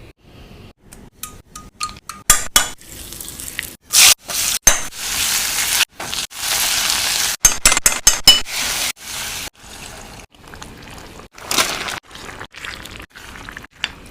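Kitchen utensils clinking and knocking against bowls and pans in short, choppy bits, with a few seconds of oil sizzling midway.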